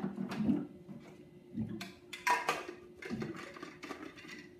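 A plastic tumbler being handled at a water cooler: scattered knocks and clicks and a brief clatter about two and a half seconds in, over a faint steady hum.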